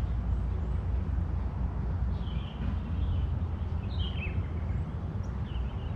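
Steady low rumble of wind on the microphone, with short bird chirps three or four times.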